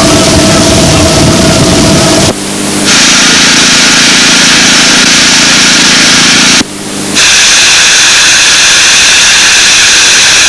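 Low rumble of a ride on a 15-inch-gauge miniature railway for about two seconds. Then, across abrupt edit cuts that briefly drop the sound out, a miniature steam locomotive gives off a loud, steady hiss of steam.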